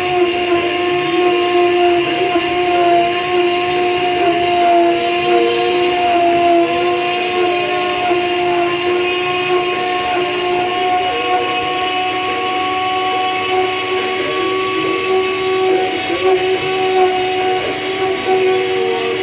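DIY CNC router running with its new motor: a steady mechanical whine with a high tone over a noisy hum.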